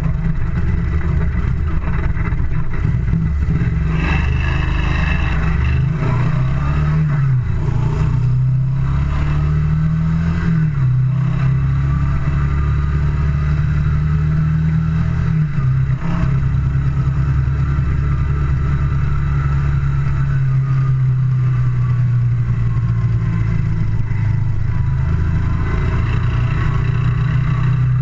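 Moto Guzzi Le Mans II's air-cooled V-twin engine running under way on the road. Its note rises and drops several times in the first ten seconds or so, then runs steadier.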